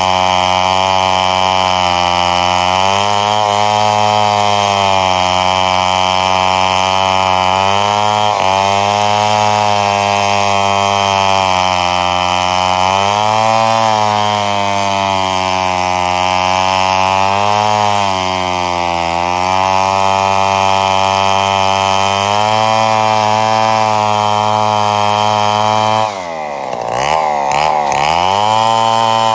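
Two-stroke chainsaw running at full throttle while cutting wood, its pitch dipping and recovering every few seconds as the chain loads up in the cut. Near the end it drops in level and the engine speed swings quickly up and down.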